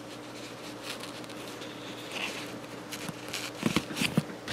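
Faint handling noise of fingers working small wire connectors, plugging a battery lead into a sense cable, with a few light plastic clicks and taps near the end over a faint steady hum.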